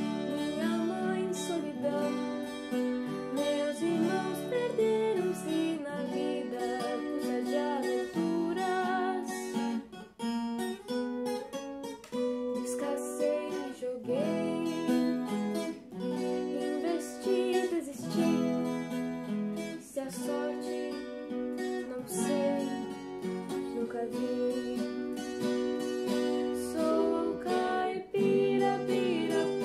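A young woman singing in Portuguese, accompanied by a strummed acoustic guitar; her voice wavers with vibrato on some held notes.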